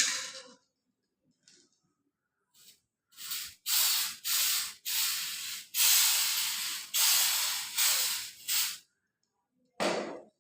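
Aerosol can of white contrast paint spraying in about eight short bursts of hiss over some five seconds, laying the white background coat on a weld for magnetic particle testing. A brief separate sound follows near the end.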